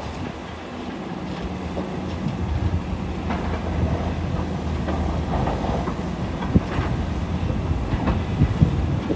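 Diesel engine of a SANY SY500H 50-ton hydraulic excavator running steadily under load. Scattered knocks and scrapes of rock are heard over it.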